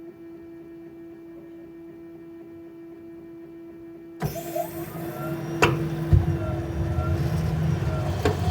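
Water heater humming steadily, then about four seconds in a much louder rough rushing rumble starts suddenly, with two sharp clicks. This is the unit's abnormal noise.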